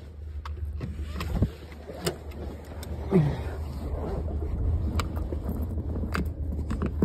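Low steady hum of a car's running engine heard inside the cabin, with a few sharp clicks and knocks scattered through it as things are handled.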